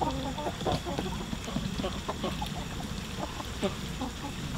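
Free-range hens clucking, with many short, overlapping clucks and calls throughout.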